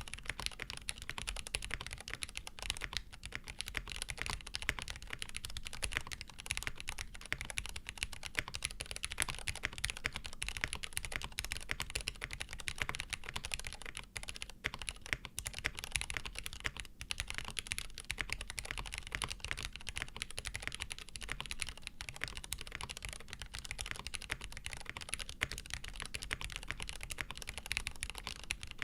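Continuous fast typing on a Frog TKL custom mechanical keyboard: Cherry "Nixie" linear switches, lubed with Tribosys 3204, on a POM plate with GMK keycaps and a tape mod, giving a rapid run of key clacks with a brief pause about halfway through.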